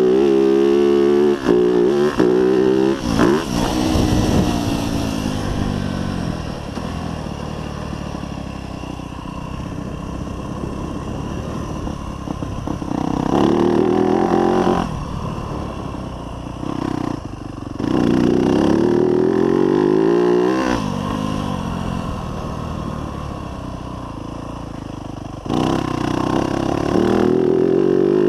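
2024 Yamaha YZ250F's 250 cc four-stroke single-cylinder engine ridden hard, revving up through the gears with a quick drop in pitch at each shift. Twice it backs off for several seconds before winding up again, then pulls hard near the end.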